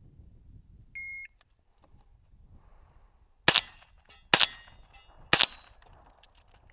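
Shot-timer start beep about a second in, then three gunshots roughly a second apart, each followed by a short ringing.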